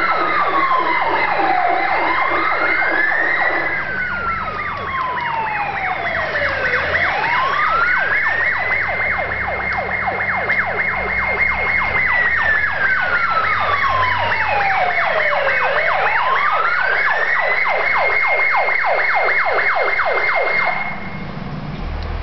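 Fire engine siren wailing. The tone holds high, falls slowly and climbs back three times, then cuts off near the end, leaving a low rumble.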